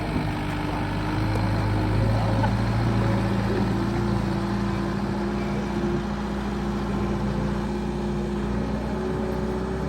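Diesel engine of a JCB 1CXT compact tracked backhoe loader running steadily with an even hum.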